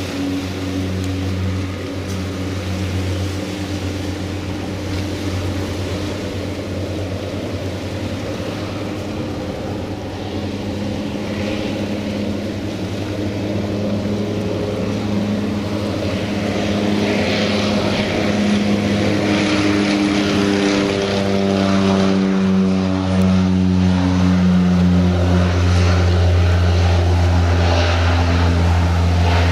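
Cessna 208 Caravan floatplane's PT6A turboprop engine and propeller at takeoff power, a steady low propeller drone during the takeoff run and climb-out. It grows louder about halfway through, and near the end its pitch falls as the plane passes.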